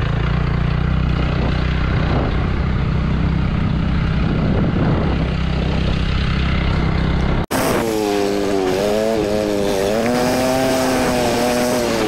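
Riding on a motorcycle: wind buffeting the microphone over a low rumble of engine and road noise. After a sudden cut about seven and a half seconds in, a droning engine note takes over, wavering up and down in pitch.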